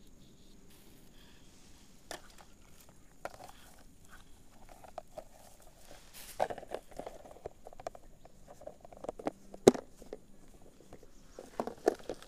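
Fishing gear being handled in tall grass: rustling with scattered clicks and knocks, busiest in the second half, with one sharp click about ten seconds in as the loudest sound.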